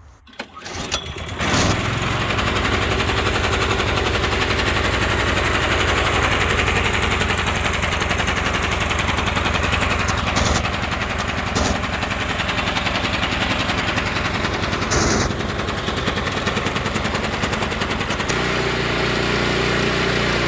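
Small gasoline engine starting about a second in, on a first test run after being filled with gas, then running steadily. A few brief sharp clicks come over it, and its low note shifts near the end.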